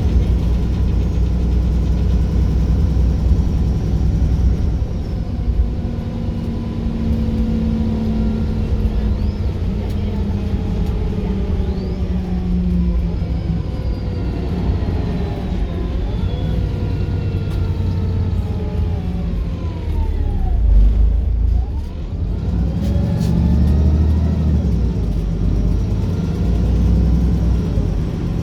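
Wright Pulsar single-decker bus under way: a steady low engine and driveline rumble, with whines that glide up and down in pitch as the bus speeds up and slows.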